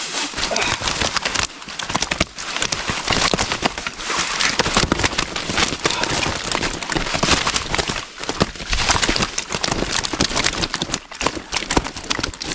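Keepnet full of carp being lifted out of the water: a dense, irregular crackle and patter of water running off the mesh and fish thrashing inside.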